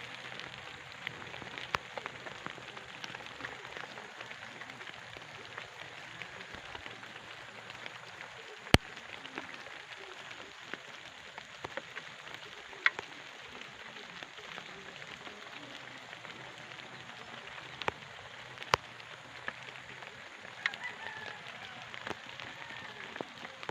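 Steady rain falling, with scattered sharp ticks of drops hitting a nearby surface; three of the ticks are much louder than the rest.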